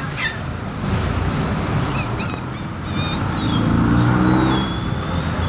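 Motor vehicle engine running close by over steady street traffic rumble, growing louder about three and a half seconds in and easing off near the end.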